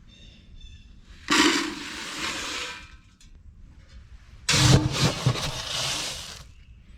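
Water poured into chicken waterers in two gushes of about a second and a half to two seconds each, with a few knocks at the start of the second.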